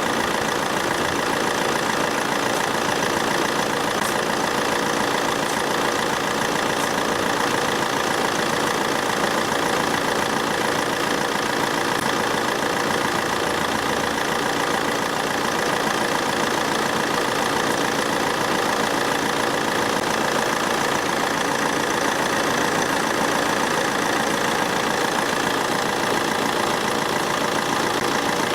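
Car engine idling steadily with the air conditioning switched on during a refrigerant recharge. It is an even, unchanging hum.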